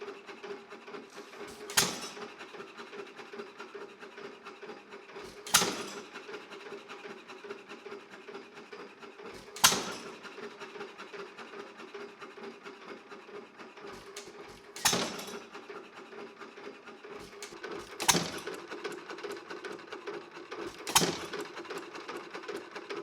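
1 1/2 hp Worthington hit-and-miss gasoline engine running, firing with a sharp bang every three to five seconds (six times) and coasting between fires with a quick, even ticking.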